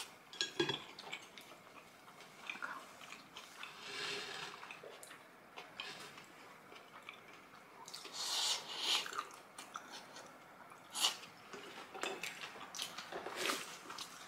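Quiet eating sounds: chewing, with scattered clicks of utensils against dishes. The sharpest click comes about eleven seconds in.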